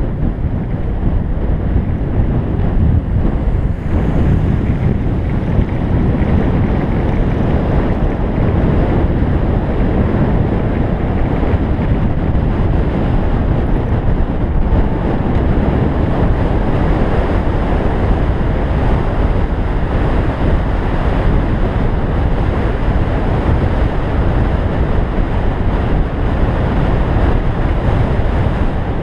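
Wind buffeting a bicycle-mounted camera's microphone on a fast road-bike descent: a loud, steady rush of wind noise, heaviest in the low range.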